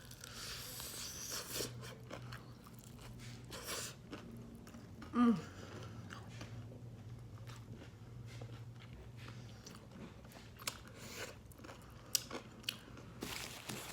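Close-miked chewing and crunching of fried chicken, with scattered wet mouth clicks throughout and a short burst of voice about five seconds in.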